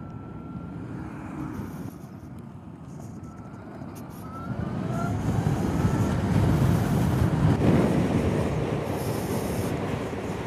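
Zero SR/F electric motorcycle riding along, heard as road and wind noise that swells about halfway through as it speeds up, with a faint electric-motor whine gliding up in pitch.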